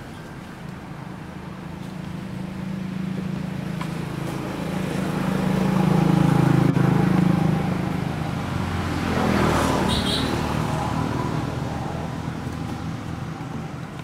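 A motor vehicle's engine going past: a low hum that swells to its loudest about six to seven seconds in and then fades, with a second brief rush of noise around ten seconds in.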